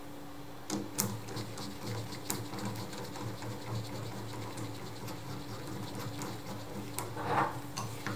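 Hand tool turning a screw into the metal mixing head of a GDI spray gun: a rapid, uneven run of small metal clicks and scrapes starting about a second in, with a louder rasp near the end.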